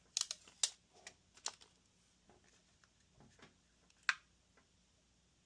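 Hands handling a small handheld gimbal camera and its packaging: scattered sharp clicks and taps, a quick cluster near the start and one louder click about four seconds in.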